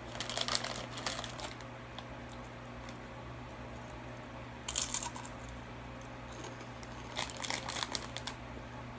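A Doritos chip bag crinkling as a hand reaches in, and tortilla chips crunching as they are eaten. They come in three short crackly bursts: one at the start, a brief one near the middle, and a longer one near the end.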